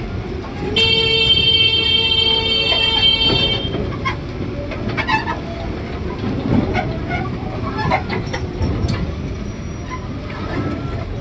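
Electric horn on an e-cart loader sounding one steady, bright note for about three seconds, starting about a second in. Around it, the low rumble of the loaders rolling over a rough dirt lane, with scattered clanks and rattles from their steel cargo boxes.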